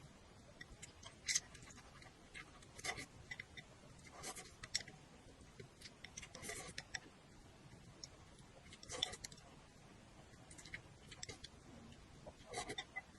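Close-miked eating sounds of a person chewing and working their mouth: short, sharp clicks and smacks at irregular intervals, about one every second or so.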